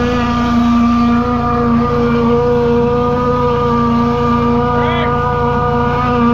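High-pressure drain jetter's engine running steadily at a constant pitch while it jets a root-blocked sewer line.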